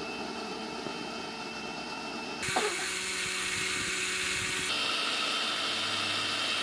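Electric mixer grinders running at full speed, blending chocolate and milk for a milkshake, with a steady high whir. The tone shifts abruptly about two and a half seconds in and again near five seconds.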